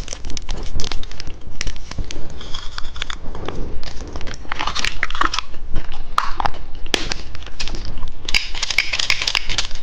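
Plastic candy wrapper crinkling and being torn open close to the microphone, with sharp clicks and taps and some biting sounds.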